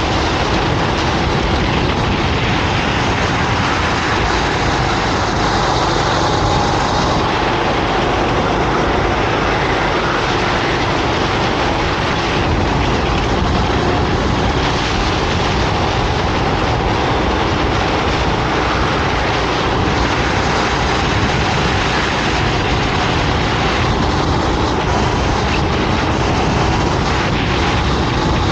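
Racing kart engine running steadily at speed, with heavy rumble and rushing noise and no letup.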